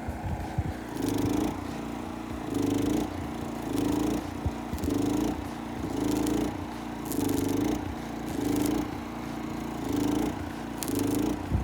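Rhythmic metal scraping during gate installation: about nine even strokes a little over a second apart, each with a pitched squeal, as of a hand tool working steel. A steady motor hum runs underneath.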